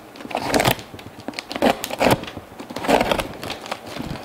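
A dull knife slicing through packing tape on a cardboard box in a series of short strokes, with the tape and cardboard crinkling.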